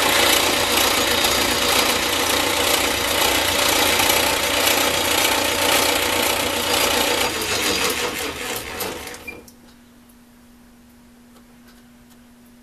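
Metal lathe running while turning an aluminum workpiece, then switched off and winding down about eight to nine seconds in. A faint steady hum remains after it stops.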